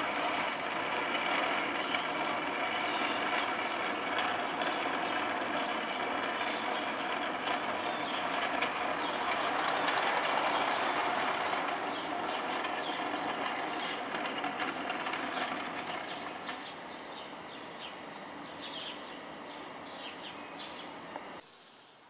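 Steady mechanical rumble of a passing vehicle carrying several held tones. It swells to its loudest about halfway through, then fades away over the last several seconds.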